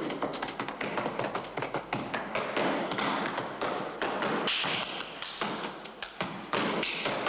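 A fast, irregular run of sharp taps and clicks.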